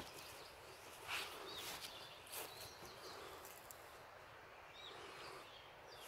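Faint outdoor quiet with small birds chirping briefly now and then and a few soft footsteps in the first half.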